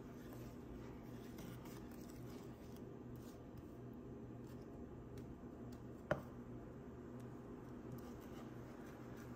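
A plastic spatula faintly scraping and stirring jaggery syrup in a pan over a steady low hum, with one sharp tap about six seconds in.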